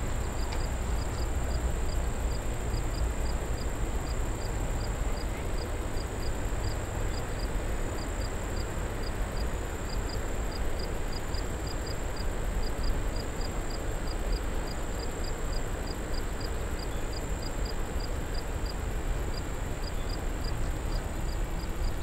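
A steady low rushing noise with a high insect chirping over it, repeating about two to three times a second.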